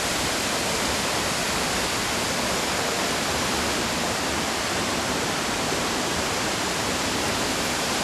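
Multnomah Falls, a tall waterfall, crashing steadily: an even, unbroken rush of falling water.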